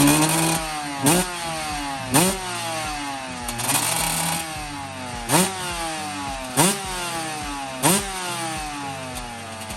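2005 Kawasaki KX125 125cc two-stroke single-cylinder engine being revved with quick throttle blips. About five times the revs shoot up sharply and then wind slowly back down toward idle.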